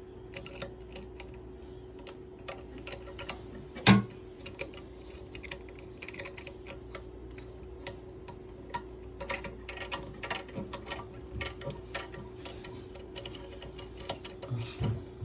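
Irregular small plastic clicks and taps as bidet attachment parts are handled and fitted onto a toilet, with one louder knock about four seconds in. A faint steady hum runs underneath.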